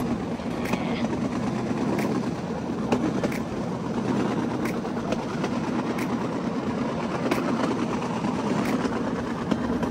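Bamboo train (norry) running along the rails: the steady drone of its small engine, with a sharp click every second or so as the wheels cross the rail joints.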